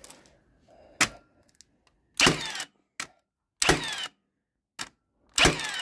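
Milwaukee M18 cordless framing nailer driving nails into a board: a sharp click about a second in, then three shots about a second and a half apart, each a loud clack with a whir that falls in pitch.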